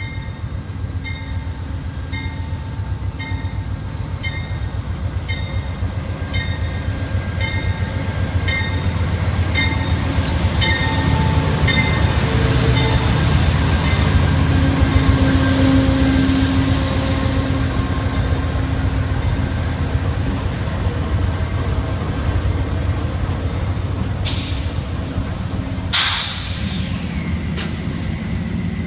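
Amtrak GE P42DC diesel locomotives pulling a passenger train slowly into a station, their engines rumbling louder as they pass close by. A bell dings about twice a second through the first third. Near the end come two sharp air hisses from the brakes, with a faint high brake squeal as the train slows.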